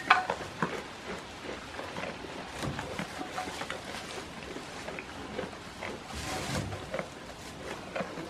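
Goats pulling hay from a metal hay rack and chewing it: irregular dry rustling and crunching of hay, with a sharp, louder knock right at the start.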